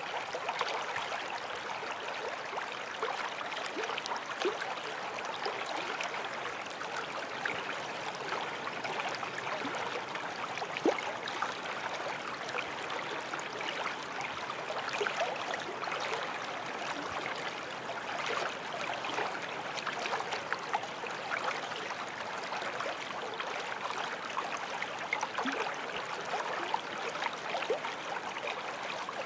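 Stream water flowing steadily over stones, a continuous rushing with many small gurgles and splashes.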